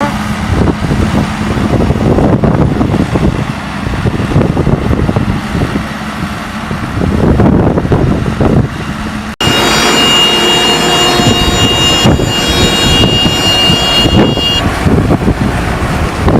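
Large 1090 hay baler running, a loud rough mechanical clatter. About nine seconds in the sound cuts abruptly, and a steady high whine with several overtones rises over the clatter for about five seconds before dropping away.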